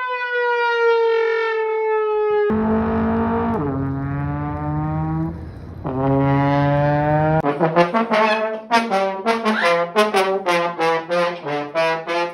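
Trombone playing: one long note sliding slowly downward, then two lower falling notes, then a quick run of short, separate notes.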